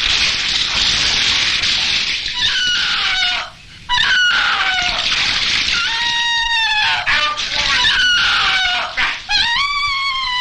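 Bathwater splashing hard in a tub as someone scrubs with a brush. Over it, repeated high-pitched squealing calls glide down in pitch.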